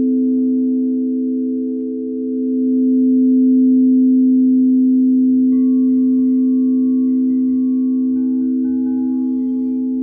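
Singing bowl ringing in a sustained, steady hum of a few low tones. It swells again about two to three seconds in and then slowly fades.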